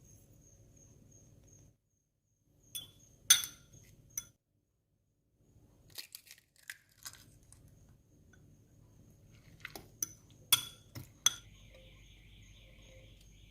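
Utensils clinking against a glass bowl and dishes: several separate sharp clinks and taps, with a faint steady hum behind them.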